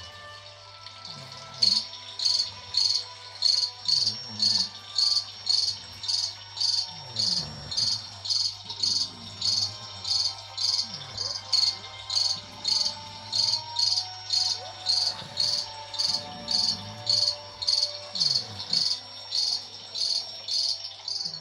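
Cricket chirping in a steady rhythm, about two chirps a second, starting a second or two in and stopping just before the end.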